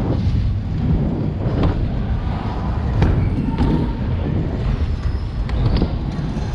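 BMX bike rolling over plywood ramps: a steady low rumble of the tyres on the wood, broken by a few sharp knocks and rattles from the bike.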